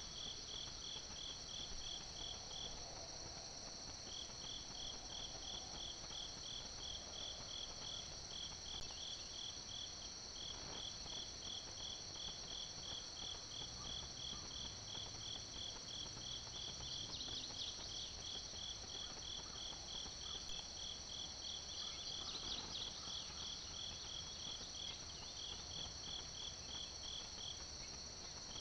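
Summer insect chorus of crickets: a continuous high trilling under a steady chirping that pulses about four times a second, pausing briefly a few times.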